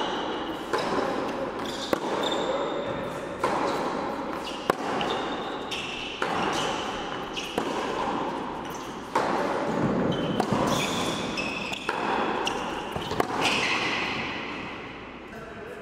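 Tennis balls struck with rackets and bouncing on an indoor hard court, a sharp pop roughly every second or so, each echoing around the large hall.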